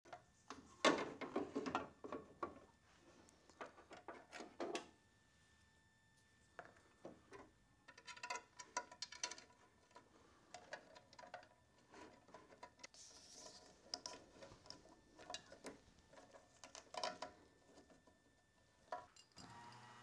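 Small parts of a turn-signal lens assembly being handled and pressed into a car's front body: a flurry of clicks and rustles in the first few seconds, then scattered taps and clicks.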